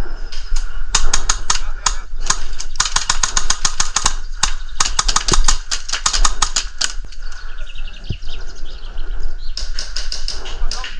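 Airsoft guns firing rapid strings of shots, running for several seconds, pausing, then another burst near the end.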